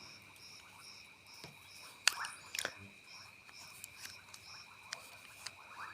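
Faint cricket chirping, about two chirps a second, with two sharp metal clicks about two seconds in, half a second apart, as a Zippo lighter is handled.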